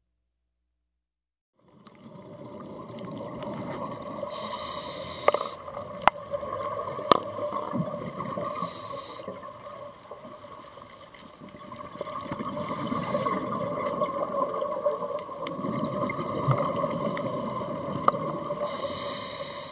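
Steady water sound with a faint two-note hum and a few sharp clicks, starting about two seconds in.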